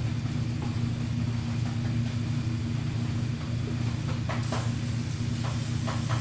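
A steady low mechanical hum, with a few light clicks or knocks near the end.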